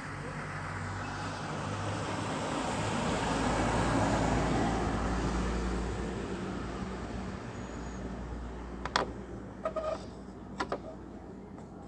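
A vehicle passing by, its engine and road noise swelling to a peak about four seconds in and then fading away. Near the end come a few short, sharp clicks and knocks.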